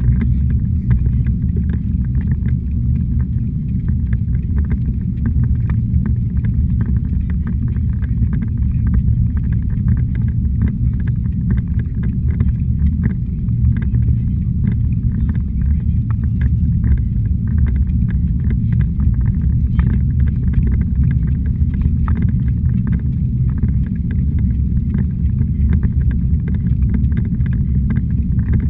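Steady low rumble of a jogging stroller rolling along a paved path, picked up by a camera mounted on the stroller, with faint ticks and rattles.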